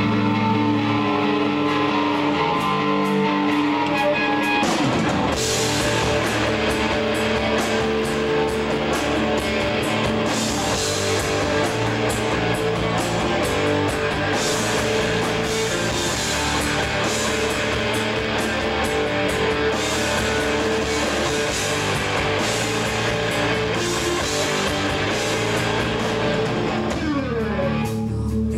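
Rock band playing live, with electric guitars, bass and drum kit, heard through a camcorder microphone. The drums and cymbals come in about five seconds in.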